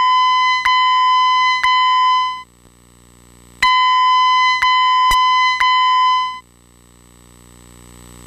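Fire alarm voice-evacuation speaker sounding a steady, high electronic alert tone in two groups of three back-to-back beats, about a second each, with a pause of about a second between groups: the system's evacuation tone. It stops about six seconds in.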